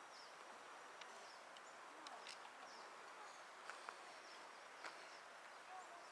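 Faint woodland ambience with scattered short, high bird chirps.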